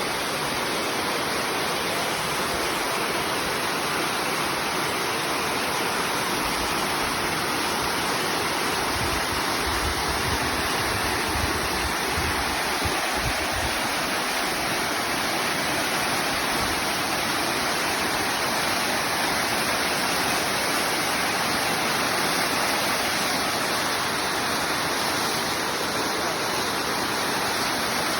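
Waterfall: the steady, unbroken rush of falling water, with a deeper rumble for a few seconds midway.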